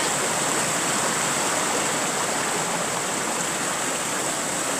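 Rocky mountain stream running and cascading over boulders: a steady rush of water.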